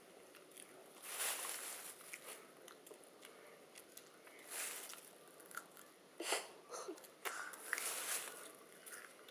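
Raw green beans crunching as they are bitten and chewed, several crisp crunches a second or two apart.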